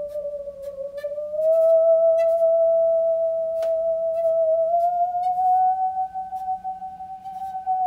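Musical saw played with a bow: one long, slightly wavering singing tone that slides slowly upward in pitch, swelling louder about one and a half seconds in, with a few faint clicks from the bow.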